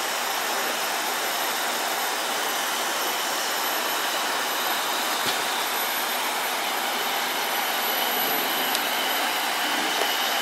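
Steady, unchanging engine noise from fire engines running.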